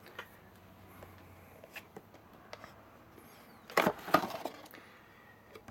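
Glossy cardboard box being opened by hand: a few faint taps at first, then a short burst of cardboard scraping and rubbing about four seconds in as the lid comes up.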